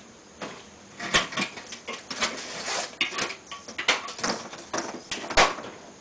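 Irregular knocks, clatters and rustling of hands-on work: a worker handling air-conditioner piping and climbing onto a metal stepladder, with the loudest knock near the end.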